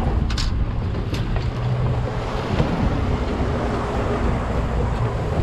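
Wind buffeting the microphone over the wash of the sea against a small fishing boat offshore, a steady heavy rush. Two brief clicks come in the first second or so.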